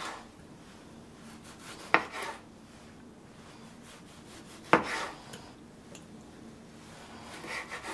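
Kitchen knife slicing through ripe tomatoes and knocking on a wooden cutting board: two sharp knocks, about two and five seconds in, with fainter taps and rubbing between.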